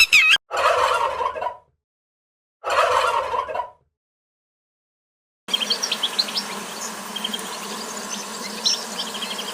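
A turkey gobbling twice, each call about a second long, with dead silence between. From about five and a half seconds in, short high bird chirps sound over a steady background hiss.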